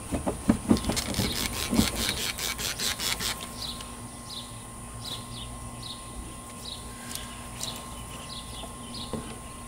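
A microfiber towel scrubbing a painted truck door in quick back-and-forth strokes, rubbing off loosened spray-paint overspray. After about three seconds the scrubbing stops and a bird chirps repeatedly, about two short falling notes a second.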